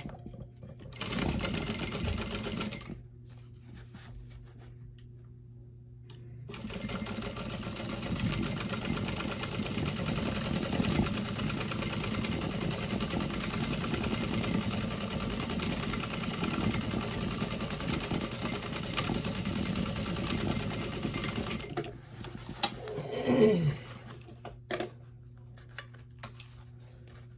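Sewing machine stitching seatbelt webbing: a short run about a second in, then a long steady run of about fifteen seconds that stops a few seconds before the end.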